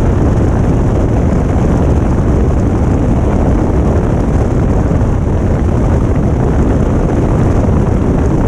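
Cessna 150's Continental O-200 four-cylinder engine holding cruise power at about 2,500 RPM, a steady loud drone heard from outside the airframe with wind rushing over the microphone.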